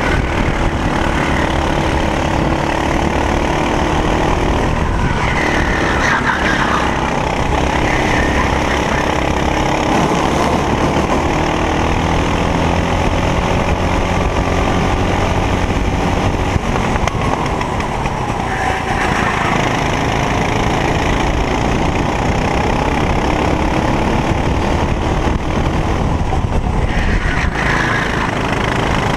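Racing kart engine at race pace, heard close up from the kart itself, its pitch repeatedly rising and falling as the driver accelerates and lifts through the corners.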